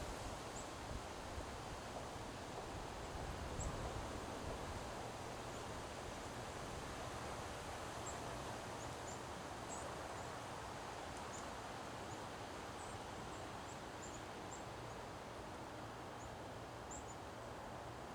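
Wind blowing steadily through trees with leaves rustling, swelling slightly a few seconds in. Faint brief high chirps are scattered throughout.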